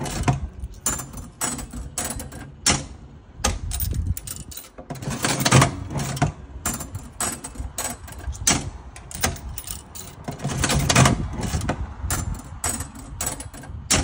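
A 1930s Watling Rol-a-Top 25-cent mechanical slot machine being played spin after spin: the mechanism clatters and clicks as the handle is pulled, the reels spin and clunk to a stop, with a louder burst of clatter about every five to six seconds.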